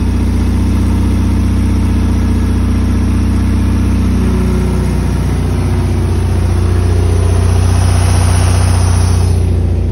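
Porsche 914 2.0's air-cooled flat-four idling steadily about a minute and a half after a cold start, a little louder for a few seconds near the end.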